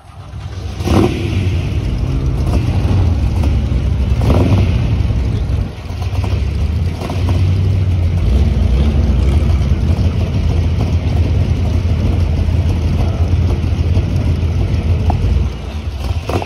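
Engines of 1949–56 sports racing cars running at low speed close by, a loud, deep, steady note, with two quick throttle blips about one and four seconds in.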